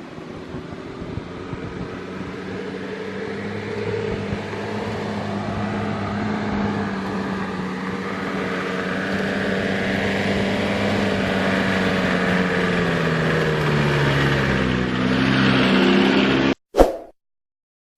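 Car engine running steadily and growing gradually louder, its pitch falling a little toward the end before the sound cuts off abruptly.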